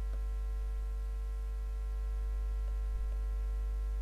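Steady low electrical hum, a mains-type buzz in the recording, with a few faint steady higher tones over it and nothing else standing out.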